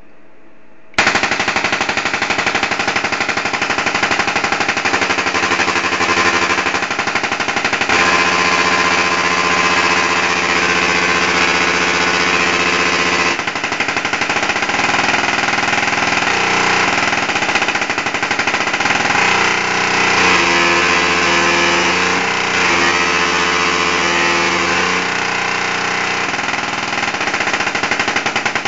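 Solid-state Tesla coil firing: its spark discharges from the toroid into the air make a loud, harsh buzz that starts abruptly about a second in. The pitch pattern of the buzz shifts several times as the coil's interrupter duty cycle is changed, and it breaks into rapid pulsing near the end.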